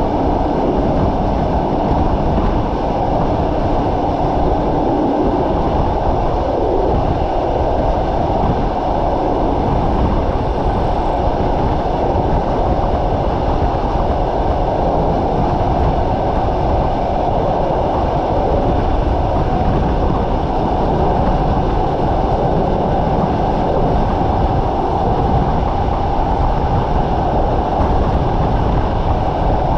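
A passenger train coach rolling along the line, heard from its window: a steady rumble of wheels on the track.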